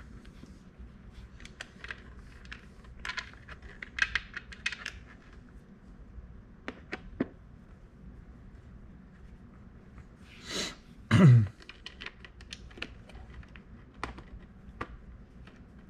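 Irregular small clicks and ticks of the T15 Torx screws being hand-driven back into the Corvette center console lid with a screwdriver. About eleven seconds in there is a short rustle, then a single loud thump.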